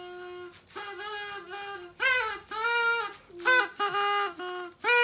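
A high voice singing a melody: one long held note, then short notes that slide up and down between pitches, louder from about two seconds in.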